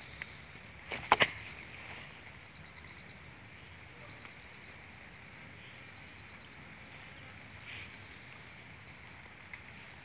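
Quiet outdoor background with faint, steady insect chirring in a high, evenly pulsing tone. A short, sharp crackle comes about a second in.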